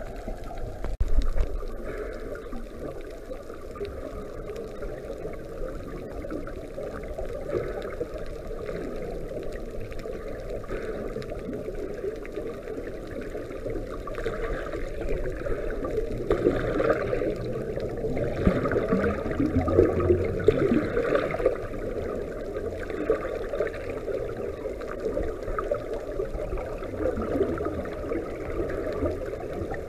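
Scuba divers' exhaled bubbles from their regulators, heard underwater as a muffled bubbling rush, with a few louder gushes about halfway through.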